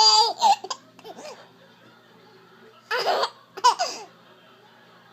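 A baby's laughter in short separate bursts with hiccups among them: a high-pitched laugh trailing off at the start, then brief outbursts about a second in and around three seconds in, the sharpest one just before four seconds.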